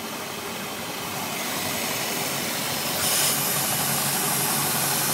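Volvo Penta 5.7 GI V8 marine engine running steadily, louder from about three seconds in. There is no exhaust-leak noise: the JB Weld patch over the hole in the manifold is holding.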